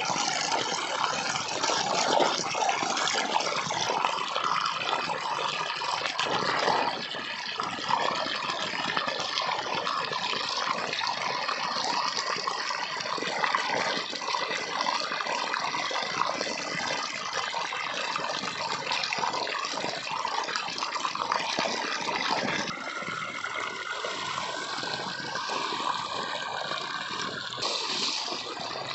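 Water gushing steadily from the outlet of a black plastic irrigation pipe and splashing into a muddy pool. The sound eases a little over twenty seconds in.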